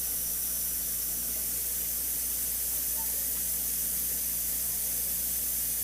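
Tap water running steadily into a glass, a continuous even hiss.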